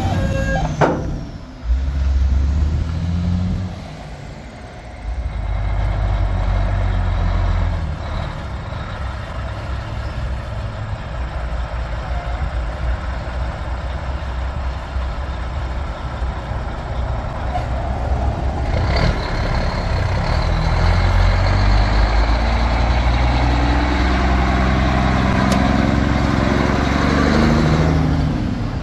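Heavy diesel truck engines going by. A tractor-trailer rig passes at first; after a short break, a Mack R-model box truck's diesel grows steadily louder from a low rumble as it pulls out and accelerates past, with its pitch falling near the end.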